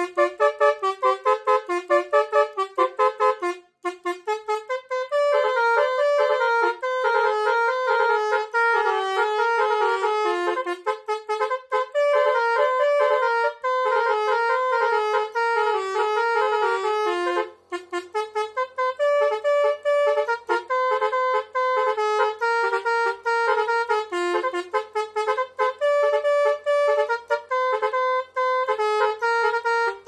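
A set of basuri truck air horns playing a melody, keyed from two melodica (pianika) keyboards wired to the horns. Quick short notes at first, then a flowing tune with a couple of brief pauses.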